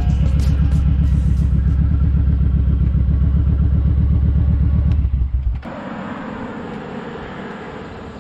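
Kawasaki Vulcan 1700 Vaquero's V-twin engine running steadily under way with a loud low drone. About five and a half seconds in, it cuts abruptly to much quieter wind and road noise.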